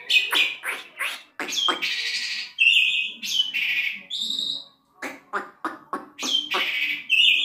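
Asian pied starling singing continuously: a rapid, varied string of sharp chattering notes mixed with harsh squawky notes and short steady whistles.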